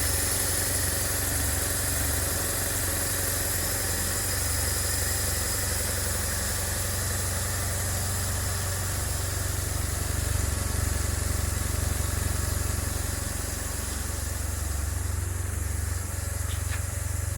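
BMW R 1150 GS air/oil-cooled boxer twin engine idling steadily.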